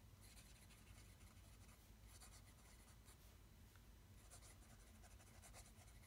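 Fine-nibbed fountain pen scratching faintly across grid paper in short, irregular strokes as words are handwritten.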